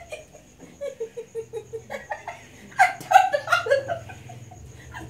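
A person laughing: a run of short, even laughs about five a second, then a louder burst of laughter about three seconds in.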